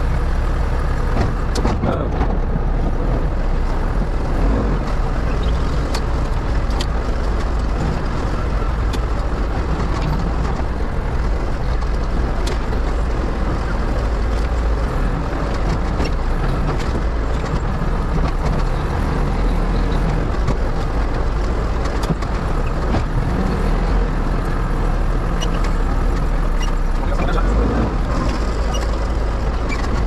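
Backhoe loader's diesel engine running steadily under work, heard from inside the cab, with scattered clicks and knocks over it.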